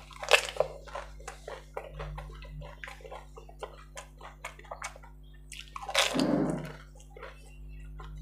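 Mouth sounds of eating golgappa (pani puri): the crisp hollow puris crunching and crackling, with wet slurping of the spiced water. A loud crunch and slurp comes just after the start as one goes into the mouth, and another loud wet burst about six seconds in.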